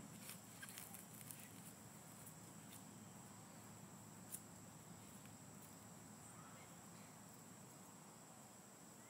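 Near silence: faint outdoor ambience with a steady high-pitched insect drone and a few faint clicks.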